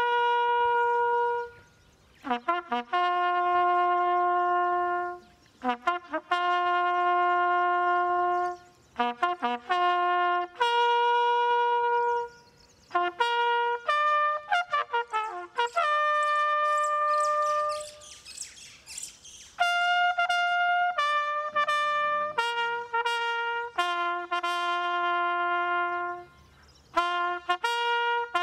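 A slow military bugle call: a solo brass horn plays long held notes in phrases separated by short pauses, using only the bugle's natural notes.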